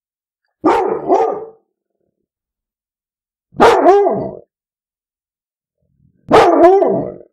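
Labrador retriever barking: three short calls about three seconds apart, the first a quick double, each with a wavering pitch.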